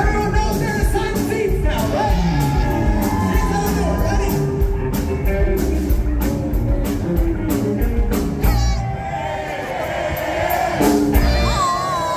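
Live band playing with electric guitars, bass, drum kit and keyboard, a male singer over a steady drum beat.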